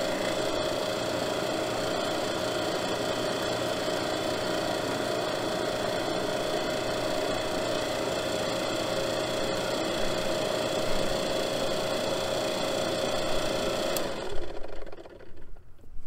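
Portable refrigerant recovery machine running steadily with a constant hum as it pulls the system down into a vacuum at the end of recovery. It is switched off about 14 seconds in and its sound dies away.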